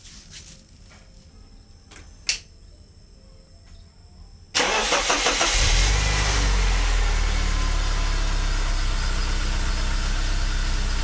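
A short sharp click about two seconds in; then, about four and a half seconds in, a BMW E36's M43 four-cylinder engine cranks briefly, catches and settles into steady running.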